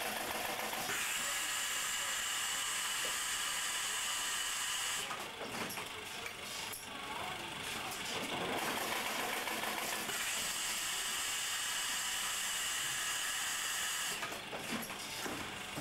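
Factory machinery running with a steady hissing drone. A higher whine comes in for about four seconds, twice: about a second in and again about ten seconds in.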